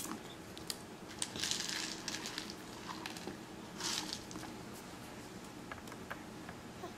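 Small clicks and light taps from a toddler's fingers handling food on a plastic high-chair tray, with two short rustling hisses, one about a second and a half in and one about four seconds in.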